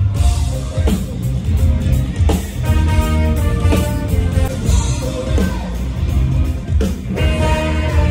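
Live rock band playing on a stadium sound system: drum kit, electric guitar and bass, with a voice singing over it.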